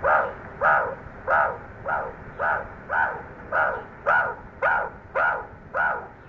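An animal calling: one short call repeated steadily about twice a second.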